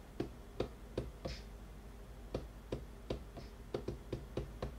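Fingers tapping the rubber pads of a Maschine Mk3 drum controller: about a dozen quick, irregular taps with a short pause near the middle.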